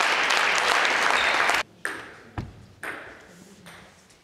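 Applause and cheering in a sports hall after a table tennis rally. It cuts off abruptly about a second and a half in. A few separate sharp knocks follow, each ringing on in the hall's echo.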